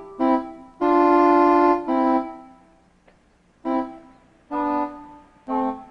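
Background music: an organ-like keyboard playing short held chords, broken off between phrases, with a pause of about a second near the middle.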